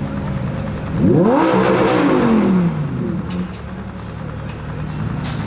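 Performance car engine idling, blipped once about a second in: the pitch climbs quickly, then falls back to idle over about a second and a half.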